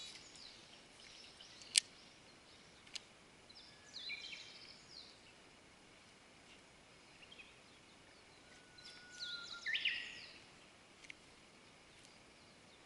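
Wild birds chirping and calling over quiet pond-side ambience, with the busiest calling about nine to ten seconds in. A sharp click comes about two seconds in and a fainter one a second later.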